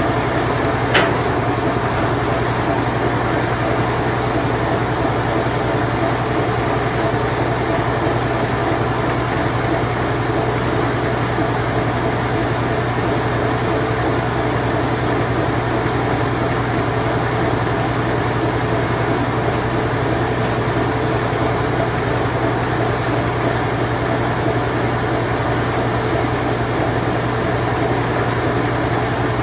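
Circa-1990 Whirlpool Imperial Clean Touch top-load washing machine running its spin cycle: a steady, even hum and whir. A single sharp click about a second in.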